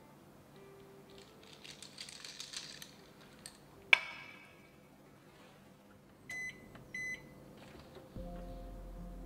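Ice cubes clinking in a glass as an iced drink is stirred with a glass straw, ending in one sharp clink about four seconds in. Then two short electronic beeps from an oven's control panel.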